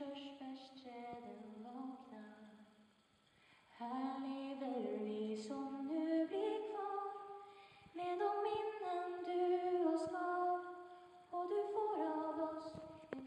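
A solo female voice singing a slow melody in Swedish with long held notes, unaccompanied, breaking off briefly about three seconds in.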